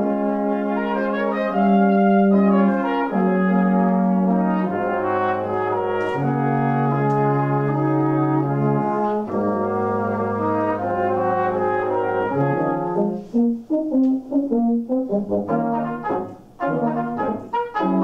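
Brass quartet playing in harmony, with trumpets on top and a low brass voice underneath: long held chords, which give way about two-thirds of the way through to short, detached notes.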